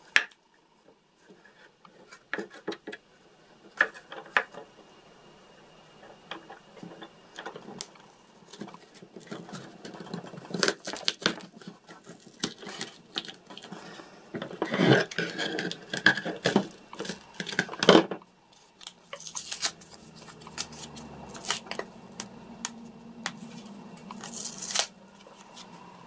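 Workbench handling noises: a brush stirring and tapping in a paper cup of paint, then irregular clicks, taps and scraping as small pieces are pressed and worked on a wooden board. The scraping is densest and loudest about two-thirds of the way through.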